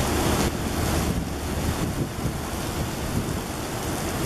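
Heavy rain pouring down in a windy storm, a steady rushing hiss, with gusts buffeting the microphone in a low rumble.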